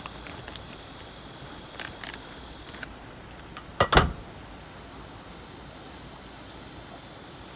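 A steady high hiss for about three seconds that cuts off sharply, then two sharp knocks close together about four seconds in, the loudest sounds.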